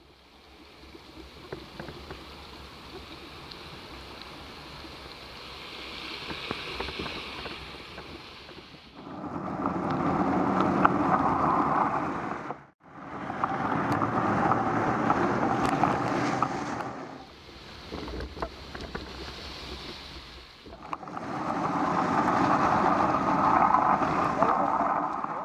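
Rushing noise of city traffic on a wet street with wind on the microphone, recorded from a moving bicycle. It swells louder three times and drops out suddenly for a moment about halfway through.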